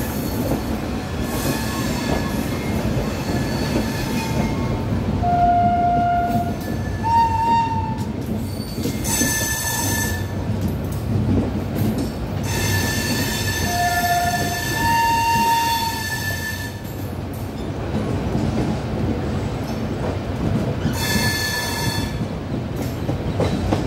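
Indian Railways LHB passenger coaches rolling past: a steady rumble of steel wheels on the rails, with high-pitched wheel squeal that comes and goes several times.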